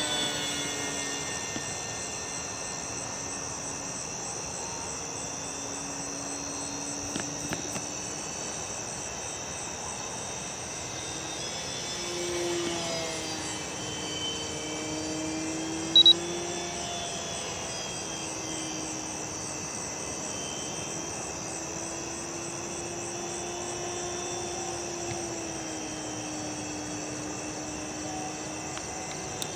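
Crickets chirping in a steady high-pitched chorus, with the distant hum of the FMS Firefly RC plane's electric motor and propeller slowly rising and falling in pitch as it flies around. One short sharp click about sixteen seconds in.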